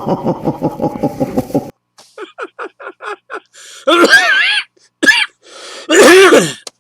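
A man's rhythmic 'ho ho ho' relief groans during a chiropractic adjustment, a Santa-like laugh: first a quick run of pulses, then about four short ones a second, then two longer, loud groans with wavering, falling pitch about four and six seconds in.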